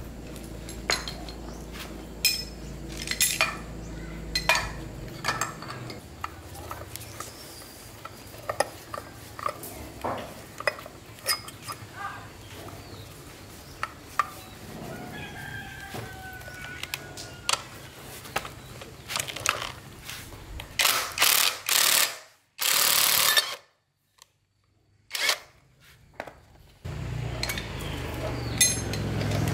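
Irregular sharp clicks and taps of hand tools on metal engine parts, with a rooster crowing in the background. The sound cuts out abruptly a couple of times near the end.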